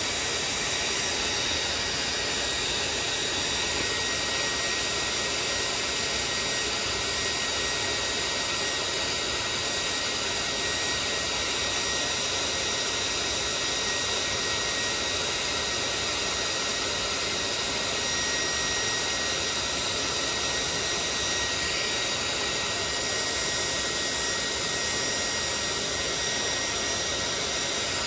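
Electric heat gun's fan and element running steadily: an even blowing hiss with a faint high whine, used to warm vinyl decals so they lay down on the plastics.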